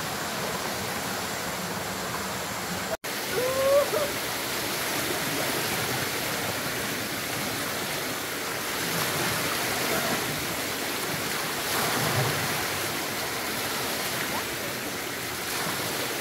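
Steady rushing of a stream's flowing water. About three seconds in the sound cuts out for an instant, and a brief pitched sound follows right after.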